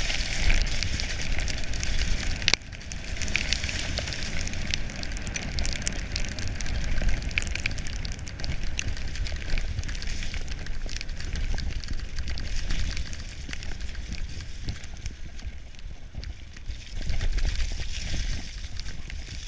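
Specialized Demo 7 downhill mountain bike running fast over wet, muddy trail: tyres hissing through mud and water, with a stream of small crackles and clicks from mud spray and the bike rattling, over a low rumble of wind buffeting the microphone. A sharper click about two and a half seconds in.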